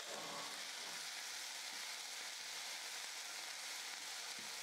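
Fresh mint leaves frying in a spoonful of hot oil in a kadai: a faint, steady sizzle.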